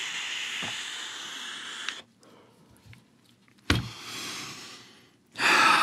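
Long draw on a DotMod dotAIO Lite pod mod: a steady airy hiss of air rushing through its airflow for about two seconds. This is the noisy draw that the vaper finds maddening. After a pause there is a click, then a loud breathy exhale of vapour near the end.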